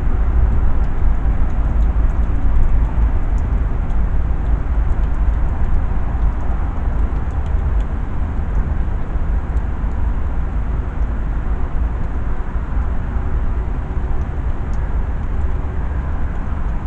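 Steady low rumble with a hiss of background noise and a few faint, small clicks now and then.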